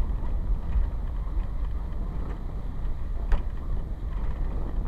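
Wind buffeting the microphone of a moving camera: a steady low rumble, with a single sharp click a little over three seconds in.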